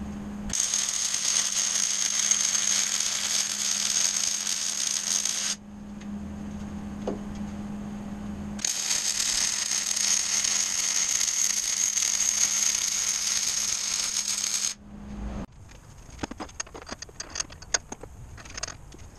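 MIG welding on steel unistrut channel: two long runs of steady arc crackle, each about five to six seconds, over a steady hum. After the second weld, light clinks and rattles of metal parts being handled.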